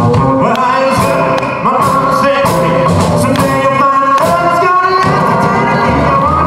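Live rock and roll band playing: a man singing lead over hollow-body electric guitar, upright double bass and drum kit.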